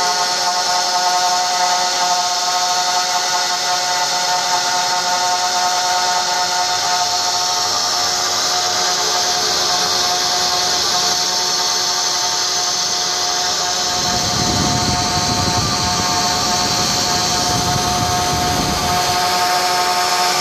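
Small CNC router spindle running with a steady multi-tone whine while its end mill cuts grooves into a metal plate. For several seconds about two-thirds of the way in, a lower rough grinding sound of heavier cutting joins it.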